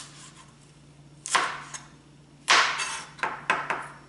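Broad kitchen knife slicing green chili peppers on a plastic cutting board: about five uneven knocks of the blade striking the board, the loudest about two and a half seconds in.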